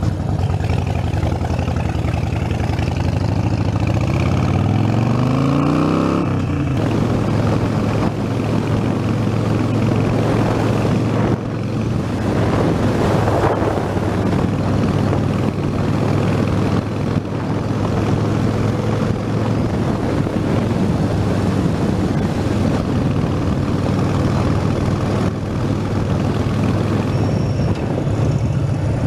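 Harley-Davidson Sportster 72's 1200 cc air-cooled V-twin, heard from the saddle: it accelerates with a rising pitch a few seconds in, then runs steadily at cruising speed with wind and road noise over it.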